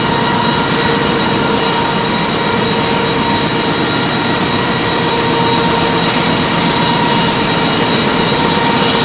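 Web offset newspaper printing press running at speed: a steady mechanical rush with a constant whine of several fixed tones on top, as the printed paper web runs fast through the rollers.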